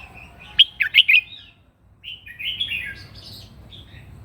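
Red-whiskered bulbul singing its combative song: a quick run of sharp, loud notes, then a short warbled phrase about two seconds in.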